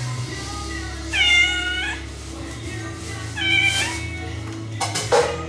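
Caged cat meowing twice, two long, fairly high meows about two seconds apart, then a brief clatter near the end.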